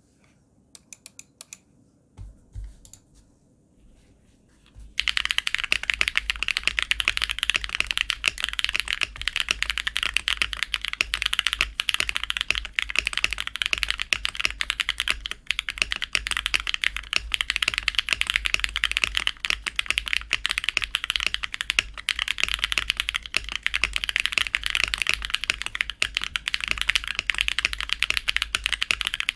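Custom 60% mechanical keyboard (KBDFans Tofu60 acrylic case, aluminium plate) with lubed Drop Holy Panda tactile switches and ePBT keycaps being typed on. A few soft, scattered clicks come first, then continuous fast typing from about five seconds in.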